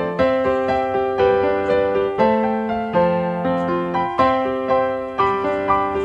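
Background music: piano playing a gentle melody over held chords, with a new note struck about every half second to a second.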